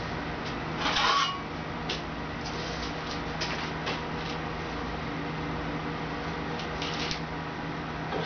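Manual sheet metal brake being unclamped and emptied. A metallic clunk and rattle comes about a second in as the clamp handle is worked, then scattered light clicks and taps as the bent mild steel sheet is lifted out of the jaws. A steady low hum runs underneath.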